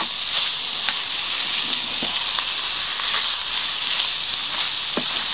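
Ground meat and diced onions sizzling in oil in a stainless steel pan as they are stirred with a wooden spoon, the raw meat browning. A few light knocks of the spoon against the pan come through the steady sizzle.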